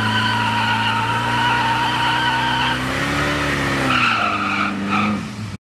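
Car sound effect: an engine holding a steady pitched note that swells and bends in pitch, with tyres squealing over it, cutting off abruptly near the end.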